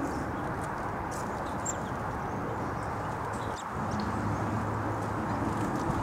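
Steady low outdoor background rush with faint, scattered high ticks.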